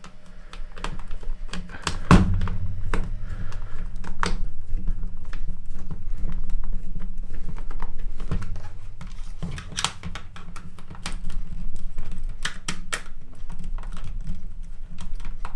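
Irregular clicks and taps of a small hand screwdriver driving screws into a plastic tool housing and the parts knocking together, over a low steady hum.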